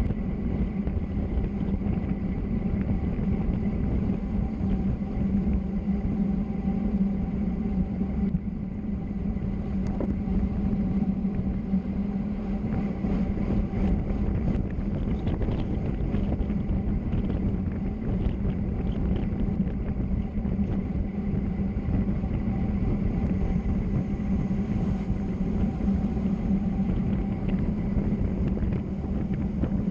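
Steady drone of a vehicle rolling down a mountain road: a constant low hum over rough road noise, without a break.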